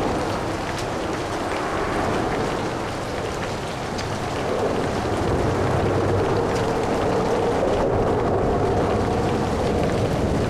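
Light rain pattering over steady traffic noise from vehicles on a city bridge and freeway. The traffic grows louder about halfway through, as a vehicle draws near.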